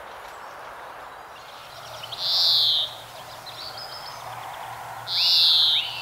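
European greenfinch calling twice, about two and five seconds in, each a drawn-out buzzy wheeze of under a second that falls slightly in pitch, with faint twittering after the first.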